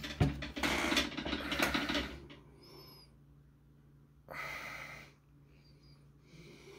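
A knock about a quarter of a second in, then about two seconds of rustling handling noise, and a shorter burst of the same about four seconds in, as a single-action revolver is lifted off a wooden desk and turned in the hand.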